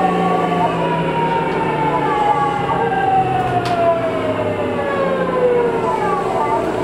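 Tokyu 2000 series train's Hitachi GTO-VVVF inverter whine, a stack of tones falling steadily in pitch as the train slows, levelling off about six seconds in, over the low running noise of the car.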